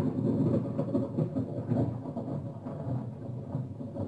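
Low, rough thunder-like storm rumble coming from a television's speakers, slowly getting quieter.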